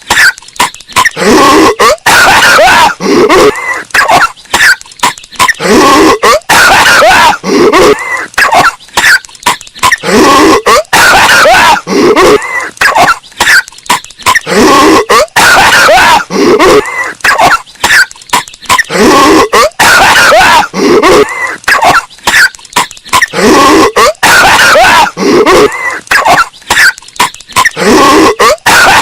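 A cartoon character's hacking coughing fit, looped over and over and heavily bass-boosted so that it clips and distorts into a rough, growly rasp. Each burst of coughs falls in pitch, and they come back about every two seconds.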